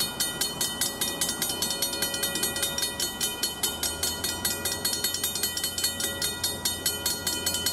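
Railroad grade-crossing bell ringing in rapid, even strikes while the warning lights flash, signalling an approaching train. A low hum comes in under it from about halfway.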